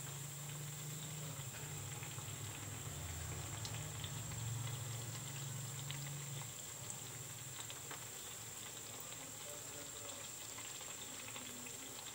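Semolina biscuits deep-frying in hot oil: a steady sizzle with scattered small pops and crackles. A low hum sits underneath and stops about six and a half seconds in.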